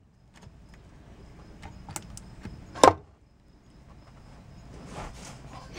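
One sharp knock a little under three seconds in, with a few faint clicks before it, over otherwise quiet background.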